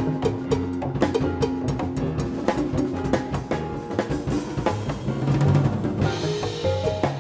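Live Latin jazz band of marimba, piano, double bass, congas and drum kit playing, with the drum kit prominent and busy. A cymbal wash swells about six seconds in.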